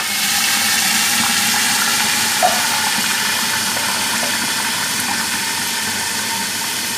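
Water poured onto hot ghee and fried onions, sizzling and hissing steadily in a covered aluminium pot and slowly dying down. A small clink about two and a half seconds in.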